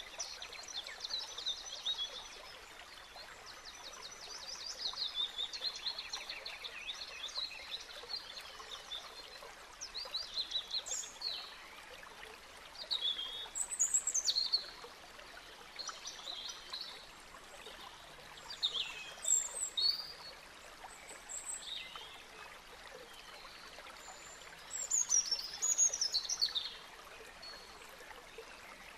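Small songbirds singing in bursts: fast trills and chirps, with short falling whistles, over a faint steady background hiss.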